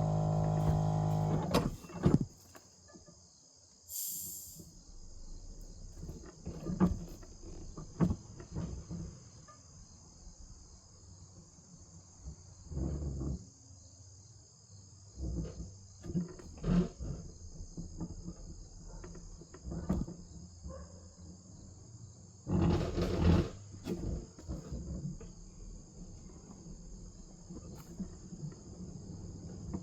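Steady insect chorus, a constant high trilling, under scattered knocks and clunks, with a short low hum at the very start and a louder noisy thump about 23 seconds in.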